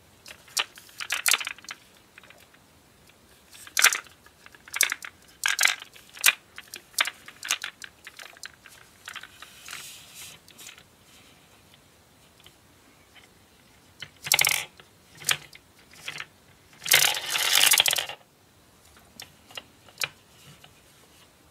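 Small plastic toy gumball machine being worked by hand: many separate sharp clicks and knocks of hard plastic, and several rattling runs of gumballs clattering down its clear plastic spiral chute. The longest run, about a second long, comes near the end.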